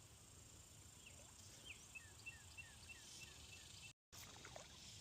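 Faint outdoor ambience. A bird gives a quick run of short, evenly spaced notes starting about two seconds in, over a steady high insect hiss. The sound cuts out completely for an instant near the end.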